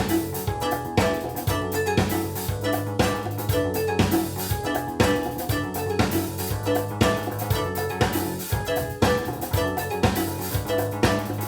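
Recorded music played back through a hi-fi system driven by a Linn Klimax Twin amplifier: a drum beat with a strong hit about once a second under a steady bass line and bright pitched melody notes.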